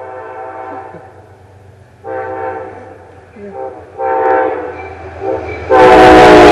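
Multi-chime air horn of an Amtrak GE P32AC-DM locomotive sounding a series of blasts, each louder than the last as the train comes on. About two thirds of the way in the locomotive arrives close by with a sudden loud rush of train noise, the horn held over it.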